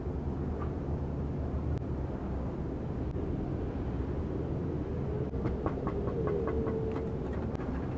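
Steady low rumble of vehicle traffic, with a faint wavering tone a little past six seconds in.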